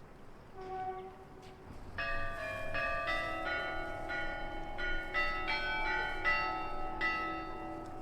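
Russian Orthodox monastery bells ringing. A few faint strokes begin about half a second in, and about two seconds in the smaller bells join in a quick, steady pattern of overlapping strikes over a lower sustained bell tone.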